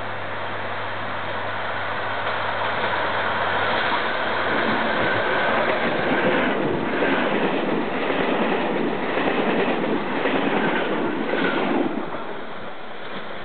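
A train pulling away and passing close by, its wheels clattering over the rail joints, with brief high-pitched squealing; it grows louder over the first few seconds and eases off near the end.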